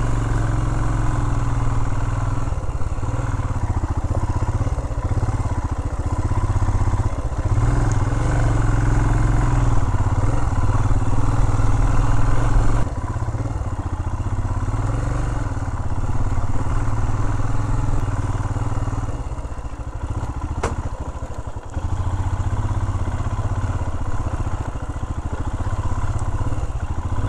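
Royal Enfield Himalayan's single-cylinder engine running at low speed on a rough dirt track, its pitch rising and falling as the throttle opens and closes, over a heavy low rumble. A single sharp click about twenty seconds in.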